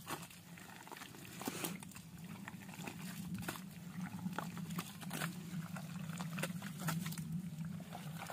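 Hands digging and scooping through thick wet mud, with irregular squelches and small slaps, over a steady low hum.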